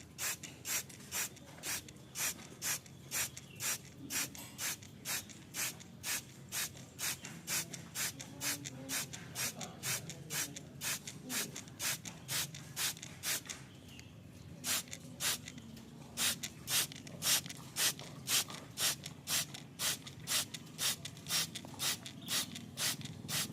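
Long-tailed shrike giving harsh, raspy calls over and over, about two to three a second at an even pace, with a short pause midway.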